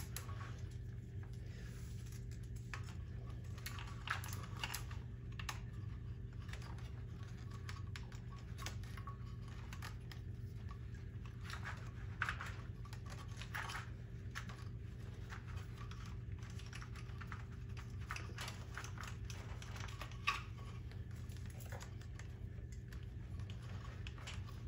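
Scattered light clicks and taps of a ribbon-cable connector and wiring being handled and pushed onto a freeze dryer's relay board, over a steady low hum. There is a slightly louder click about 12 seconds in and another about 20 seconds in.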